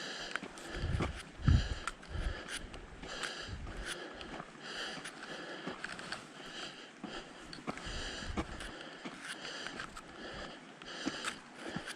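A hiker's breathing, one audible breath every second or two, with footsteps on the trail. A few low thumps sound about a second in.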